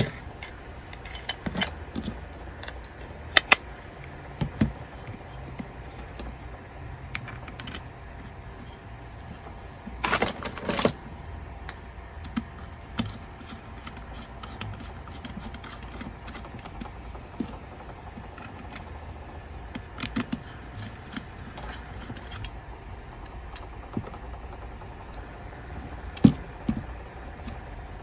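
Scattered clicks and small clatters of plastic and metal parts of a Krytac Maxim 9 gas-blowback airsoft pistol being handled and fitted together, with a louder rattle lasting about a second about ten seconds in. A faint low hum runs underneath.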